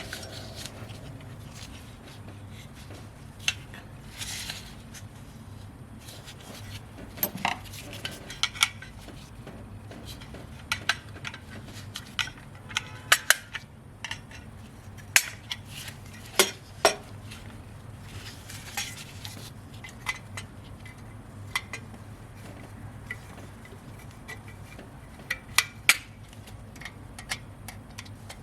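Metal hand tools and small parts clicking and clinking at irregular intervals as a blown fusible link is removed from a vehicle's wiring, over a faint steady low hum.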